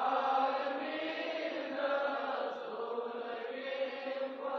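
A group of voices chanting softly together in a steady, drawn-out devotional chant.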